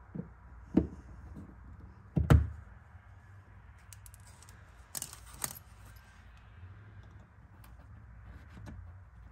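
Metal pliers and a small pry tool clicking and clinking against plastic push rivets in a car's wheel-arch molding as the rivets are pried out. A scattering of short, sharp clicks, the loudest a little over two seconds in.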